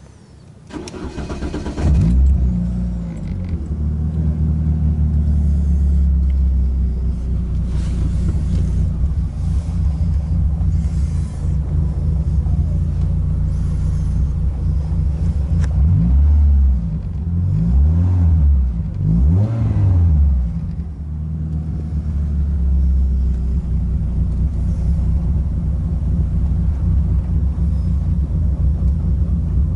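Renault Clio 2 RS 2.0-litre four-cylinder engine cranked by the starter for about a second, then catching and idling steadily. Between about 16 and 21 seconds in, the engine is revved three times, each rev rising and falling back to idle.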